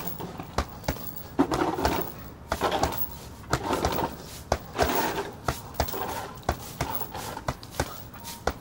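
Boxing gloves striking a chain-hung heavy punching bag: irregular runs of sharp thuds, several a second, with short noisy bursts between the runs.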